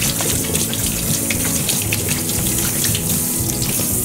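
Kitchen tap running into the sink while a potato is rinsed and rubbed under it, with small knocks from handling it. The water stops near the end.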